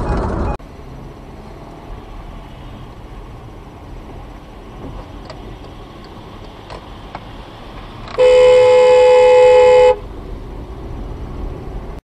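Quiet steady road noise inside a moving car, then about eight seconds in a car horn sounds one long, steady blast of about two seconds, the loudest sound here.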